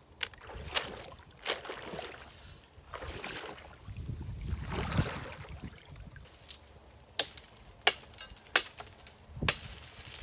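Water sloshing and splashing in swells, then four sharp clicks or knocks in the second half.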